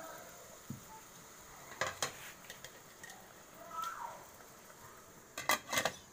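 Cookware clatter from a metal cooking pot: a couple of sharp clinks about two seconds in. Near the end a lid clatters onto the pot, the loudest sound.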